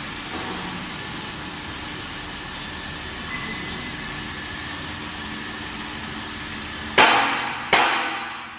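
Steady mechanical hum, then two loud metallic clangs from the steel granulator about three-quarters of a second apart near the end, each ringing out.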